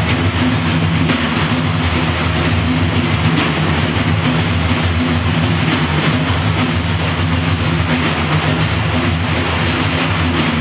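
Large frame drums played together by an ensemble in dense, unbroken drumming, with the jingles of a tambourine mixed in.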